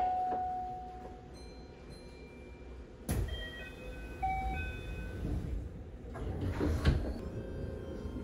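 Passenger doors of a Keihan 13000 series commuter train sliding shut, closing with a heavy thud about three seconds in, followed by a second knock a few seconds later.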